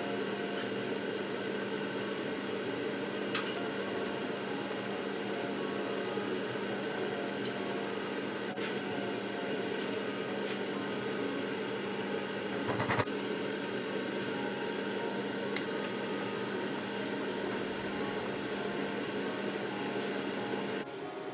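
Curry paste gently sizzling in a stainless steel wok over a steady hum. A spatula clicks against the wok now and then, with a louder clatter about two-thirds of the way through.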